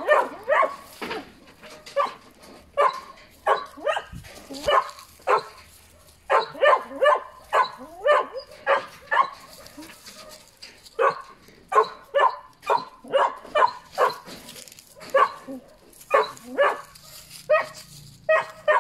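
A litter of young puppies yipping and whining: short, high-pitched cries a few a second, in runs broken by short pauses.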